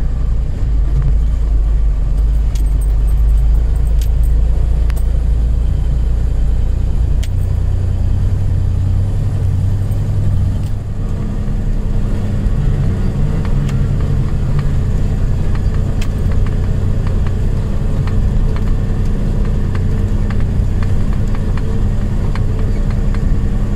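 Magirus Deutz truck's air-cooled diesel engine running steadily, heard from inside the cab while driving a gravel track, with knocks and rattles from the cab. About eleven seconds in the engine note dips briefly and then settles at a new steady pitch.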